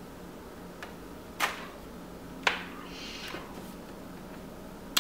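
Mouth sounds of chewing a bite of soft frosted cookie: a few short wet clicks and lip smacks about a second apart, with a soft breathy rustle in between.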